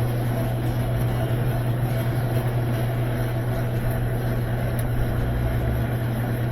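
Steady low mechanical hum of a running machine, even and unchanging throughout.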